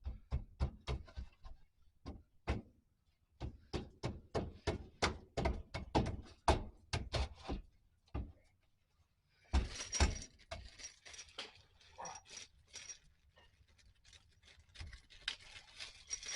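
Irregular clusters of sharp metallic clicks and knocks, followed by a denser stretch of rattling and clinking about halfway through, as a transmission is worked and eased into place under a Jeep Wagoneer.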